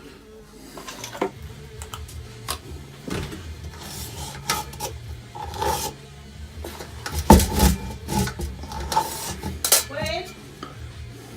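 Hand tools and small hard objects being handled against a wall board: scattered clinks, scrapes and knocks, with one louder thump about seven seconds in, over a low uneven hum.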